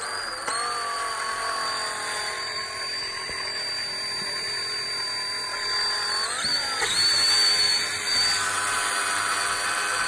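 DeWalt XRP cordless drill running steadily, spinning a length of curtain track down the blocked tube of a vintage Atomic coffee machine to grind out limescale deposits. Its pitch sags briefly about six and a half seconds in, then it runs on.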